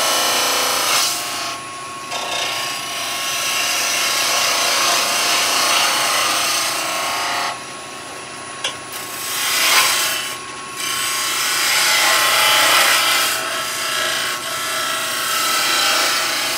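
Skew chisel cutting a spinning wooden spindle on a lathe: a loud hissing shave of wood in several long passes, broken by short pauses about two, eight and ten seconds in, over a faint steady whine from the running lathe.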